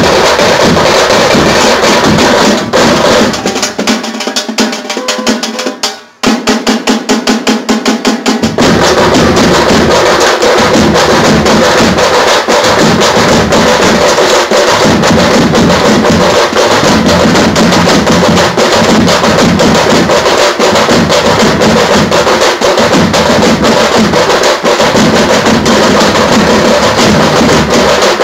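A tamte band, stick-beaten frame drums with large bass drums, playing a loud, fast, dense rhythm. About four seconds in, the bass drums drop out and the frame drums play alone; they break off briefly near six seconds and then play a fast, even roll. The whole band comes back in at about eight and a half seconds.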